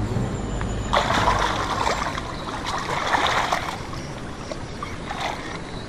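Shallow river water sloshing and lapping right at the microphone, stirred by a crocodile moving up to the camera. Under it, a low engine hum is heard for about the first second.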